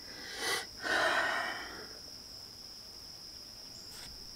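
A person's quick breath in, then a longer, louder breath out that fades over about a second, like a sigh or a puff of air. A steady high insect drone runs underneath.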